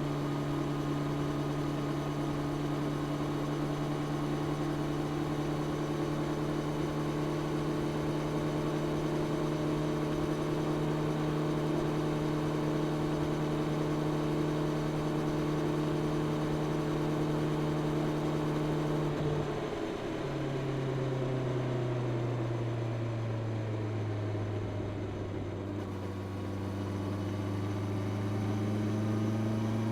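Honda CB650R inline-four engine through its stock exhaust, running at a steady cruising note. About two-thirds of the way in the pitch drops suddenly to a lower note, which sags a little and then picks up slightly near the end.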